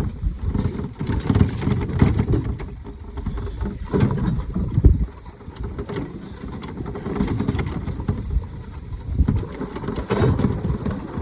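Small utility vehicle being driven over rough ground, with an uneven low rumble and scattered rattles and knocks.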